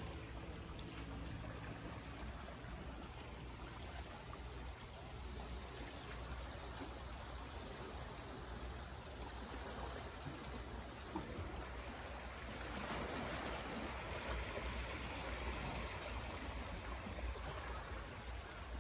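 Small sea waves lapping and washing against a rocky shoreline in a steady, gentle wash that swells a little past the middle, with a low rumble underneath.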